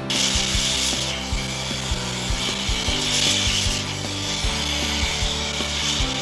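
A rasping, rubbing noise of hand work that starts abruptly and swells about three seconds in, over quiet background music.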